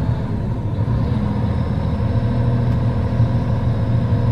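John Deere 1270E harvester's diesel engine running steadily, heard from inside the cab, with a faint high whine joining about a second in.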